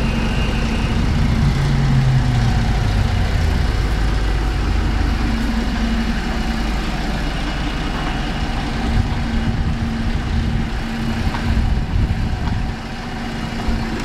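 Steady low engine rumble, like a vehicle idling, with a steady hum running through it.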